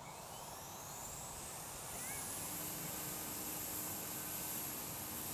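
Leaf blower spinning up. A whine climbs in pitch for about two and a half seconds and then holds as a steady high whine over the rush of air.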